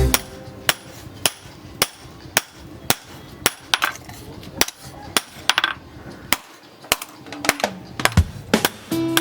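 Hand hammer striking a knife blank of tractor-disc steel on an anvil, sharp ringing blows about twice a second with a brief pause near the end.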